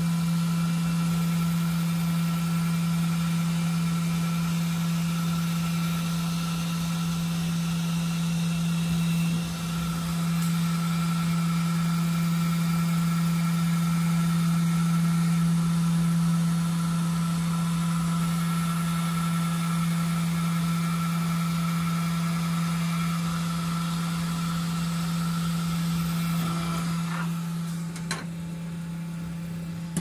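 K40 CO2 laser engraver running a job: a steady machine hum with a fainter, higher steady whine above it. About two seconds before the end the whine fades and the sound drops in level.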